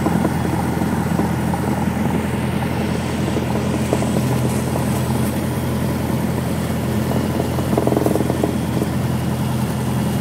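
Cessna 172's piston engine and propeller running steadily, heard from inside the cabin as a constant low drone.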